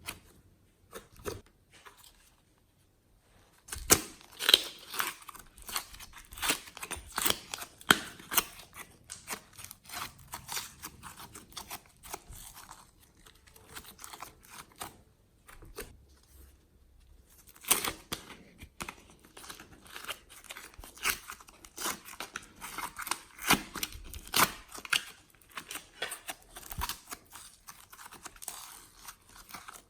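Glossy slime being squeezed and stretched by hand, giving dense runs of sharp wet clicks and pops. There are two long bouts of this, separated by a brief pause about halfway through.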